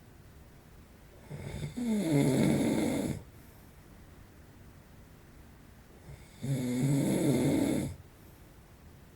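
A man in his forties snoring in his sleep: two long snores about five seconds apart, each lasting one and a half to two seconds, with quiet between them.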